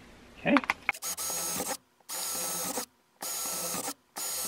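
Cordless drill boring a small pilot hole through a shed's siding wall. The motor whines steadily in four short runs that cut off sharply between them, after a few handling clicks about half a second in.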